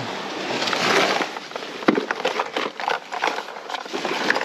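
Fishing tackle being handled: a plastic lure box and a fabric bag rummaged through, giving crackly rustling, then a run of short sharp clicks and knocks from about two seconds in as line is pulled out.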